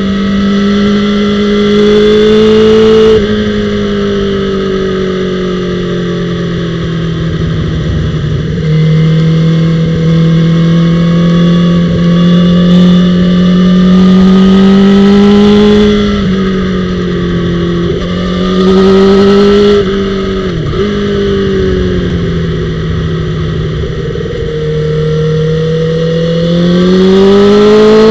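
Honda CBR1000RR (SC59) inline-four engine heard onboard at speed, running at a fairly steady pitch through a long corner with a few brief throttle surges and one quick dip about two-thirds through. Near the end the pitch climbs as the throttle opens hard out of the corner.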